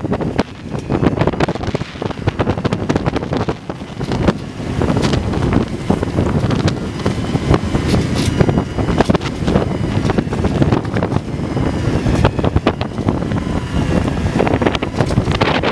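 Strong wind buffeting the microphone aboard a small sailboat in choppy water, a steady rumble broken by frequent crackling gusts.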